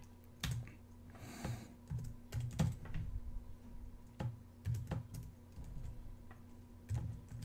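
Computer keyboard keystrokes: a dozen or so sharp, irregularly spaced key clicks as a short command is typed, over a faint steady hum.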